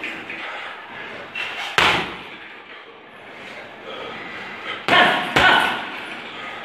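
Hanging heavy punching bag being struck: one loud smack about two seconds in, then two more in quick succession about five seconds in.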